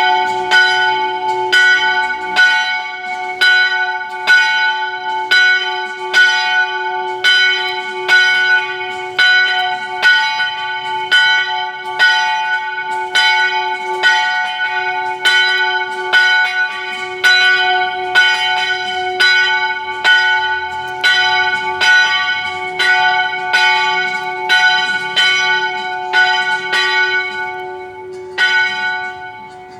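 A single French-made church bell of about 150 kg tolling in even strokes, about three every two seconds, each stroke ringing on over the last with a steady hum beneath. The strokes stop about a second and a half before the end and the ringing dies away.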